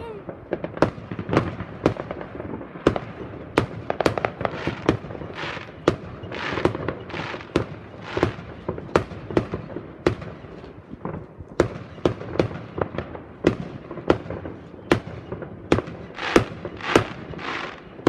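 Fireworks going off in quick succession: an irregular run of sharp bangs, several a second, with crackling in between.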